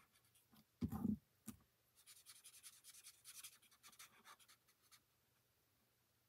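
Marker tip scratching faintly on cardstock in quick short strokes, colouring in, stopping about five seconds in. A short dull sound, louder than the strokes, comes about a second in.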